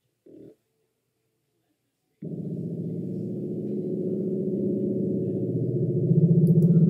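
Recording of the Bloop, the underwater hydrophone sound sped up to be audible. A short low burst comes just after the start; then, about two seconds in, a deep rumbling tone sets in and grows steadily louder until it stops suddenly near the end. Its cause is unknown, though it could be ice breaking.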